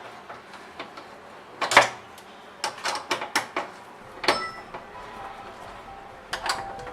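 A series of sharp clicks and knocks from metal lock parts being handled on the door, with a loud knock about two seconds in, a quick run of clicks around three seconds, and a knock with a short metallic ring about four seconds in.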